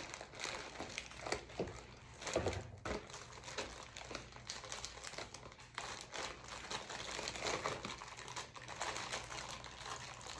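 Plastic packaging crinkling and rustling in irregular crackles as hands handle poly mailer bags and pull at a small clear plastic bag.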